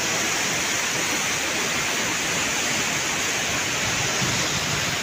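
Steady rushing of the flood-swollen Narmada River as fast, muddy water churns through its rocky gorge below Dhuandhar Falls.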